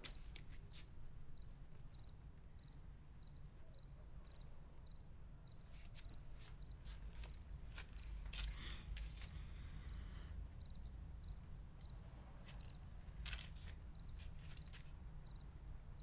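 A cricket chirping faintly and steadily, a short high chirp about every half second, over a low rumble, with a few scattered clicks.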